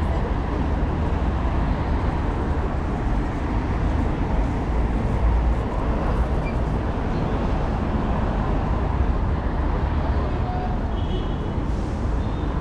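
Steady city traffic noise: a continuous low rumble of passing vehicles.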